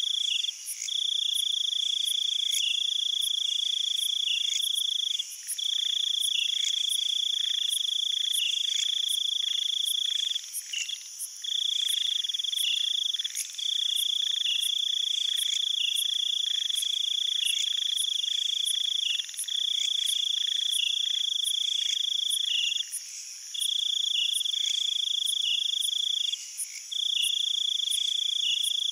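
Insects trilling: a loud, steady high-pitched trill that breaks off briefly every few seconds, over a fainter higher chorus and regular faint ticks about twice a second.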